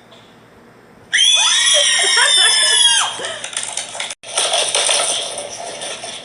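A loud, high-pitched human scream lasting about two seconds, starting about a second in and sliding slightly down in pitch, followed by a rougher, breathier shriek that breaks off briefly and then trails away.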